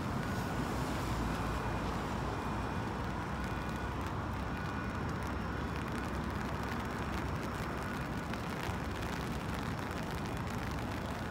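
Steady traffic on rain-wet roads, tyres hissing, with a continuous even rumble and no single event standing out.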